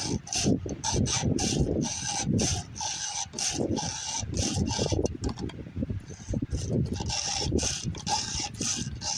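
A hand file rasping back and forth across the cutting teeth of a chainsaw chain, in quick repeated strokes, about two to three a second, as the chain is sharpened tooth by tooth with a set number of strokes per tooth.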